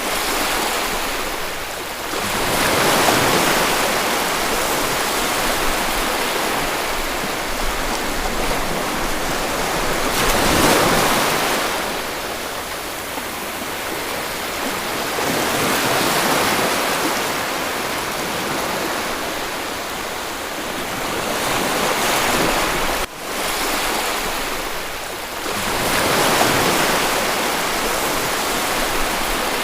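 Sea waves washing onto a shore, a steady rush that swells and falls back every few seconds.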